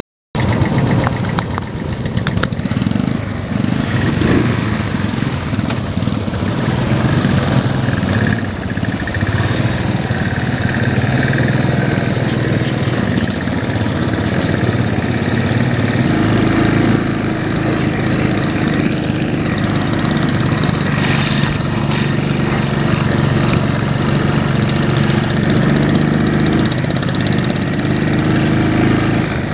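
Royal Enfield Bullet 500 single-cylinder engine running steadily while the motorcycle is ridden, heard from the rider's seat, with other Bullets riding close by.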